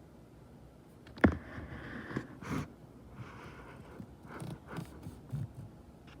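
A sharp knock about a second in, followed by irregular scraping and rustling with a few softer knocks, like objects or the recording device being handled.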